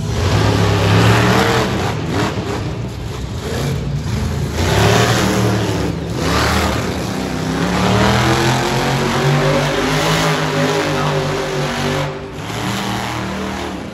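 Bone Shaker monster truck's engine revving hard, rising and falling in pitch again and again as the truck drives and turns on the arena dirt, with a brief let-off about twelve seconds in.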